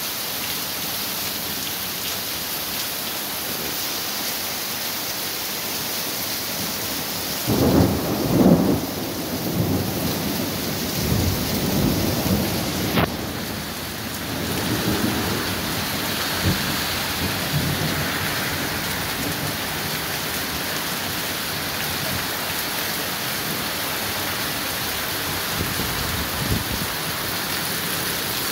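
Heavy rain pouring steadily onto a street. About a quarter of the way in, thunder rumbles low and rolls for several seconds, the loudest sound here, before fading back under the rain.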